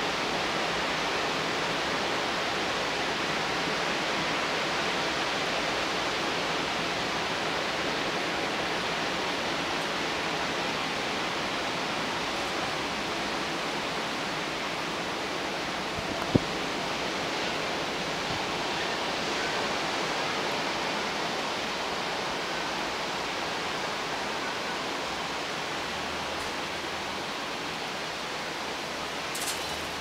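Steady, even hiss, with a single sharp click about sixteen seconds in.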